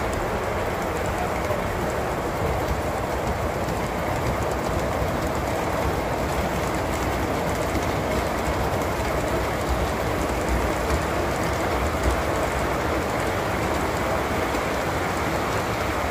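Model train cars rolling along the layout track: a steady rumble and hiss of metal wheels on rail, with faint clicks.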